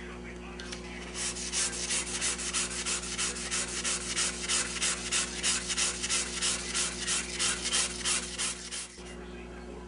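Folded 320-grit sandpaper rubbed back and forth by hand over the old lacquer finish of a wooden radio cabinet top, in even strokes about three a second. The strokes start about a second in and stop near the end. This is light sanding to take the alligatoring (crazed, rough lacquer) off the finish.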